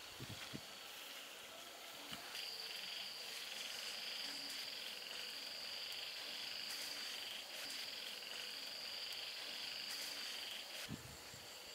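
A steady, high-pitched night chorus of calling insects and frogs, which comes in about two seconds in and cuts off abruptly near the end. A few soft low thumps sound in the first second.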